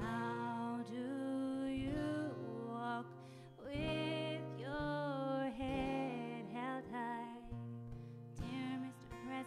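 A woman singing long held notes with vibrato over an acoustic guitar accompaniment.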